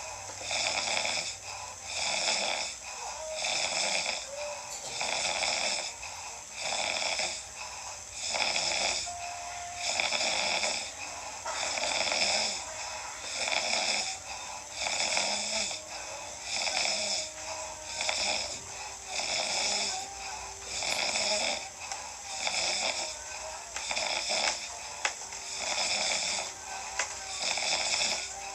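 Loud, rhythmic snoring, one snore about every second.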